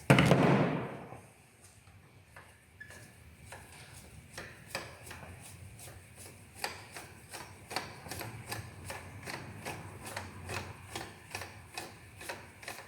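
A brief loud rush of noise, then a ratchet wrench clicking in a fast, even run of sharp clicks, a few per second, as a spark plug is unscrewed from the Seat Cordoba's 1.4 16-valve engine.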